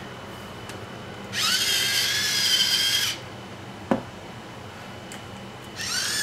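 Electric salt mill grinding, its small motor whining steadily for about two seconds. A single knock follows, then near the end an electric pepper mill starts the same kind of motor whine.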